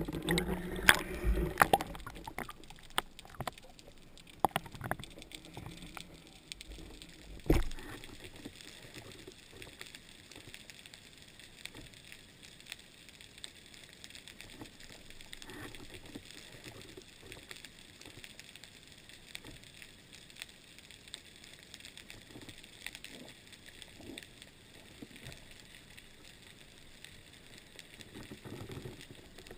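Underwater sound heard through a camera housing. Sharp knocks and clunks come as the speargun and the speared barracuda are handled over the first several seconds, the loudest about seven and a half seconds in. After that there is a faint, steady hiss with scattered light clicks.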